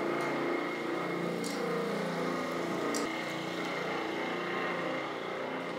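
Floor grinder grinding thinset mortar off a concrete slab, running as a steady hum heard from another room. A few light clicks over it.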